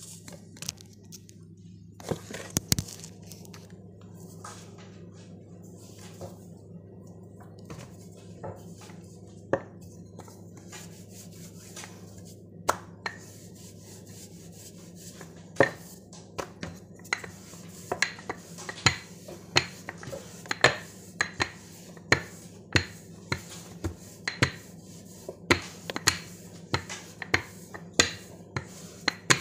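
A wooden rolling pin rolls out dough on a floured countertop, with repeated sharp knocks and clacks. The knocks are sparse at first and come about once or twice a second from about halfway, over a steady low hum.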